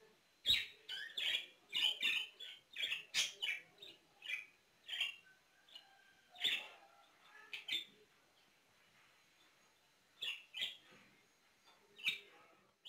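Pet budgerigar chirping: a quick run of short, high chirps over the first few seconds, then scattered single chirps with pauses between them.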